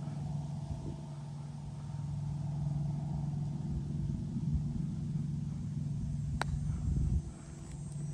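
A golf cart running steadily with a low, even hum, and a single sharp click about six seconds in.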